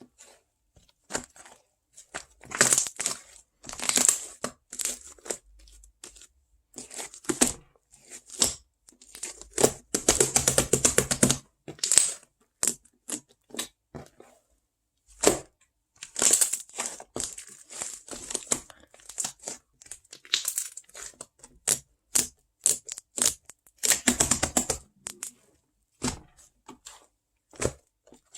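Close-up crinkling, crackling and tearing sounds in irregular short bursts, with a denser stretch of continuous crackling about ten seconds in.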